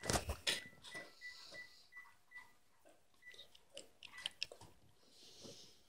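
Phone handset keypad beeping: a run of short, high beeps at one pitch as the keys are pressed, followed by faint clicks of the handset being handled.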